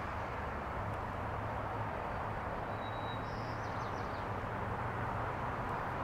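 Low, steady rumble of a distant diesel locomotive on a slowly approaching BNSF local freight, over a constant outdoor hiss. A bird chirps briefly about three seconds in.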